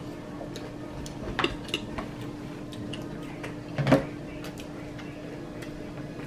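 Metal spoons clinking against ceramic cereal bowls as children eat cereal with milk: a few short clinks, the loudest about four seconds in, over a faint steady hum.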